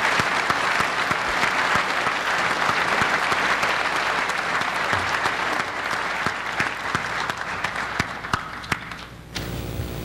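A large indoor audience applauding steadily, the clapping dying away near the end, where a few low thumps follow.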